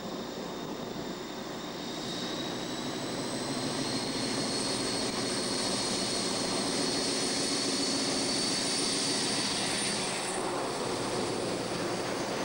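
Class 56 diesel locomotive's Ruston-Paxman V16 engine working under load as it hauls a loaded coal train up a gradient, with a high whine over the engine noise that rises slightly in pitch. It grows louder as the locomotive approaches and eases a little near the end as it passes beneath.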